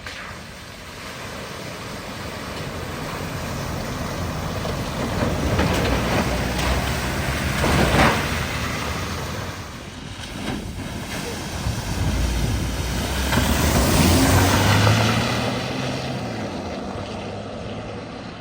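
A car driving through deep floodwater at a ford, its engine running under a wash of water spray. It grows louder twice, about eight seconds in and again near fourteen seconds, then fades away.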